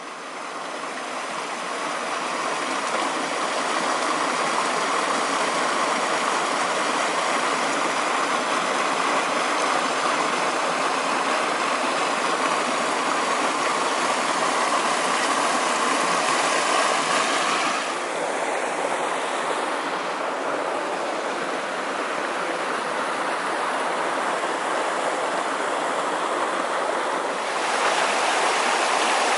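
Mountain stream rushing and splashing over rocks: a steady rush of water that fades in at the start. About two-thirds of the way through it turns softer and less hissy for several seconds, then comes back louder and brighter near the end.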